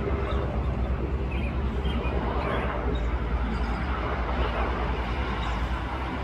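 Helicopter flying overhead at a distance: a steady low drone from its rotor and engine, with fast, even pulsing in the low end.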